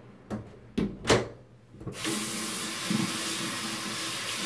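A few sharp knocks, then about two seconds in a bathroom sink tap is turned on and water runs steadily into the basin.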